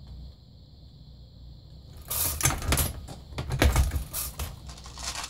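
A faint steady high whine, then from about two seconds in a dense run of metallic clinking and clattering: loose 9mm brass cartridges rattling against each other and the plastic tray of the reloading press.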